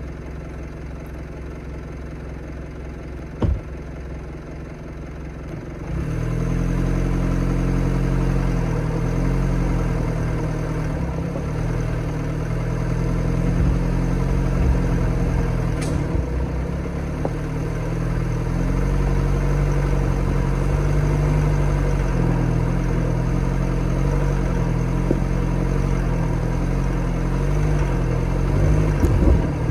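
Mitsubishi Delica D:5's turbo-diesel four-cylinder engine working at low speed as the van crawls over rocky landslide debris, getting louder about six seconds in as more power is applied. A single sharp knock comes a few seconds in, with a few lighter knocks near the end.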